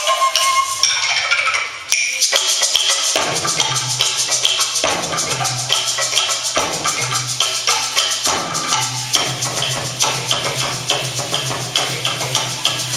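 Dance music of fast rattling, clicking percussion, many quick strokes a second, over a low steady tone that comes in about three seconds in, after a brief break near the start.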